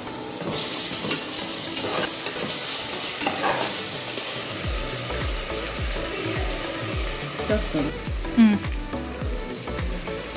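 Sliced onions and ginger-garlic paste sizzling in hot oil in an aluminium pressure cooker while they are stirred, with scattered scraping clicks against the pot.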